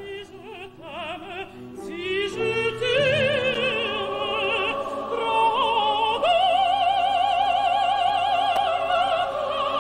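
Opera music: a singing voice with wide vibrato over accompaniment, climbing to a long held high note about six seconds in.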